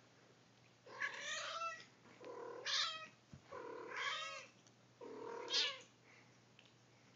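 Sphynx cat giving four drawn-out meows in a row while play-wrestling with another cat, each call a little under a second long.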